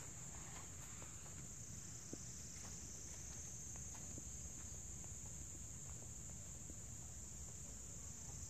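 Faint, steady high-pitched insect chorus shrilling without a break. Faint footsteps on a dirt trail tick through the first few seconds and fade away.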